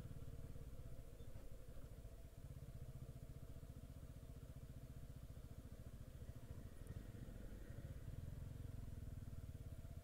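Motorcycle engine running steadily while riding, fairly quiet, with a fine rapid pulse and no revving up or down.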